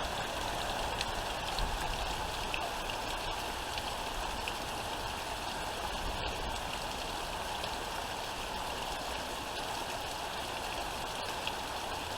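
Heavy rain falling steadily, a dense even hiss without thunder or wind gusts.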